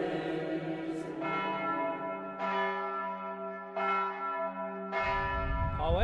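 A bell tolling, struck four times at about one-and-a-quarter-second intervals, each stroke ringing on into the next.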